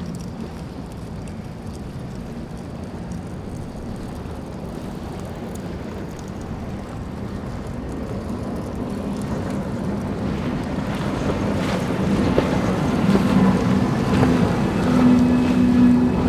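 Powerboat's engines running at high speed as it planes past, with the hiss of its spray and wake. The engine drone grows steadily louder and is loudest in the last few seconds.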